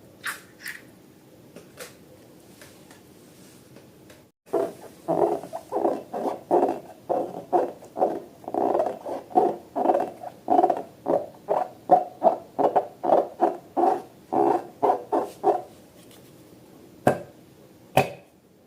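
Slime and balloons being handled. A few light taps, then, starting about four seconds in, a long rhythmic run of short, hollow squelching squeezes, about two a second, for roughly eleven seconds. Two sharp clicks come near the end.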